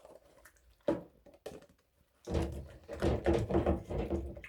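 Plastic fan parts knocking twice against the sink while being washed, then a louder stretch of handling and rubbing noise.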